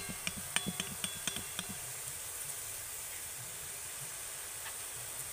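Gram-flour batter drops frying as boondi in a kadai of hot oil, a steady sizzling hiss. Through the first second and a half, a string of quick metallic taps with a ringing tone, about four a second, as the perforated ladle is shaken over the pan, then only the sizzle.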